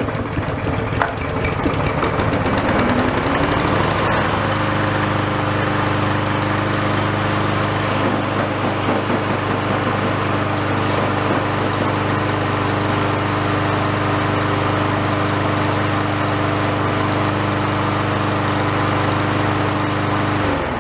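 Husqvarna push mower's small four-stroke engine, just started after a fresh oil fill, speeding up over the first few seconds and then running steadily at speed. It shuts off just before the end, its note dropping away.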